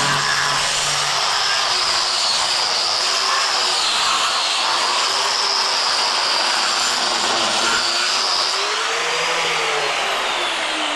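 Angle grinder fitted with a diamond cup wheel grinding a painted floor to rough it up for waterproofing primer: a steady, gritty grinding noise with a high whine that dips under load and slides down in pitch near the end.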